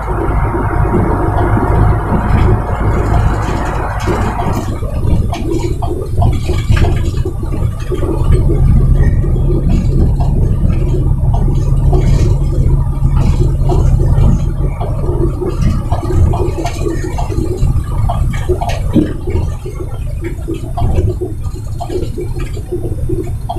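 Heavy truck's diesel engine running, heard from inside the cab as a deep steady rumble, with frequent rattles and knocks from the cab.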